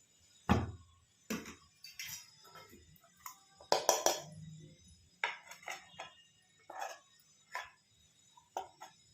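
A spoon clinking and scraping against a cooking pan and a plate as hot toffee syrup is spooned out into drops: about a dozen separate irregular clinks, the loudest about four seconds in.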